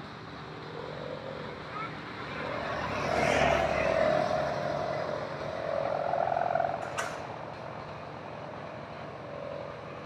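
Kite hummer (sendaren) on a kite droning in the wind: a wavering hum that swells and fades, loudest in the middle. A single sharp click about seven seconds in.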